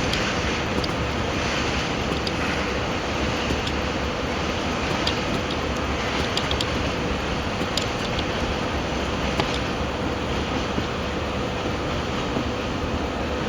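Freight train running through the yard: a steady rumbling noise with a faint hum and scattered light clicks.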